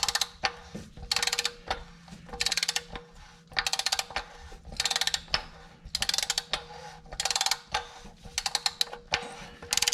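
Socket ratchet wrench being cranked in repeated strokes, a burst of fast clicks on each backswing about once every second and a quarter, as a fastener is run down snug before its final torque.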